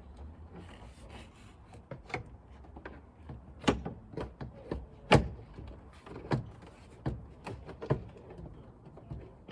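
Irregular sharp knocks and clicks, about a dozen, from handling the replacement wing mirror against the van door, the loudest about five seconds in.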